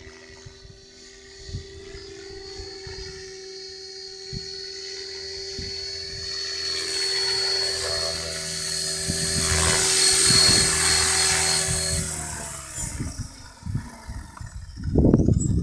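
Electric RC helicopter (Logo 500 with an Align 600MX brushless motor) flying with a steady high whine from motor and rotor, growing louder as it comes in close to land. After the landing the whine falls in pitch and fades as the rotor spools down, and a loud burst of rumbling noise comes near the end.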